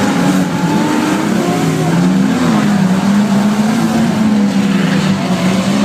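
Banger racing cars' engines running and revving on the track, several at once, their pitch wavering up and down.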